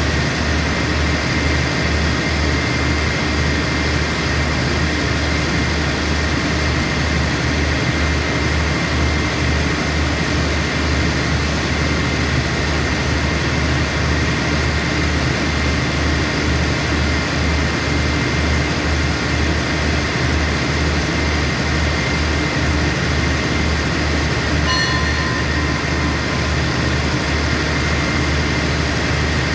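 A diesel express train standing at a platform with its engines idling: a steady low, pulsing drone with a constant whine above it.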